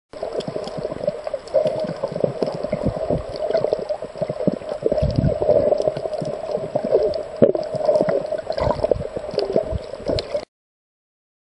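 Water noise picked up by a camera filming underwater: muffled gurgling with dense crackling. It starts just after the beginning and cuts off abruptly near the end.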